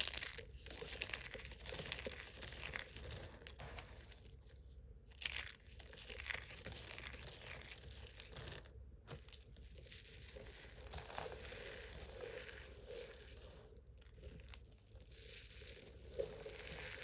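Thick dry soap crunching and crackling as it is worked, in irregular strokes with a few brief pauses.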